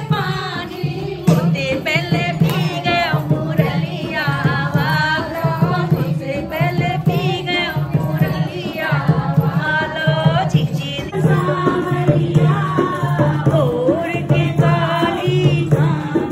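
Indian folk song with singing over a steady drum beat, the music played for dancing.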